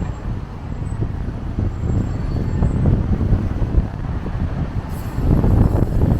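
Strong wind buffeting the camera's built-in microphones: a loud, uneven low rumble that swells about five seconds in.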